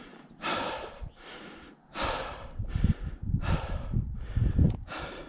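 A hiker breathing hard and out of breath from the climb: heavy, rushing in-and-out breaths close to the microphone, about one every half second. Footsteps can be heard under the breathing from about halfway in.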